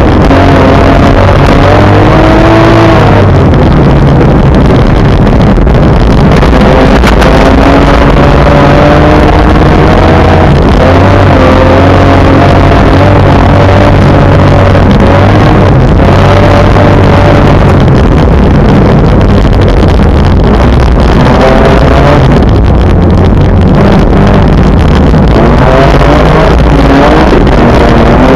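Car engine under hard acceleration, heard loud from inside the car: its pitch climbs and drops back at each gear change, several times, over a steady low rumble of road noise.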